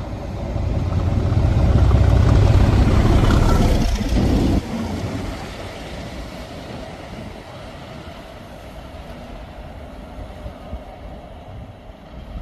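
Class 37 diesel locomotive with snowploughs running through a station: the low engine and wheel rumble builds to a peak as it passes. About four and a half seconds in the sound drops sharply, leaving a fainter rumble that fades as the locomotive moves away.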